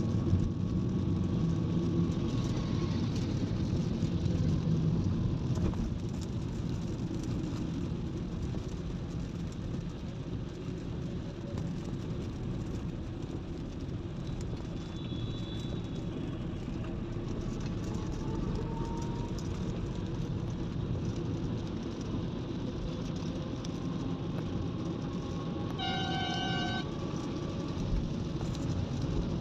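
Steady road and engine noise heard inside a car's cabin driving on a wet highway, with a vehicle horn sounding for about a second near the end.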